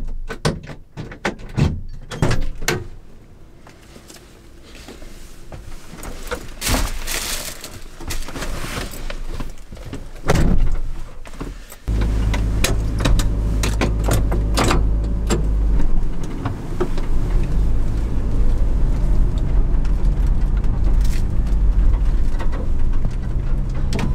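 Scattered knocks and clicks as a driver gets into a kei truck's cab, with a loud thump, typical of the door shutting, about ten seconds in. The truck's small engine then starts abruptly about halfway through and runs steadily, heard from inside the cab, as the truck moves off.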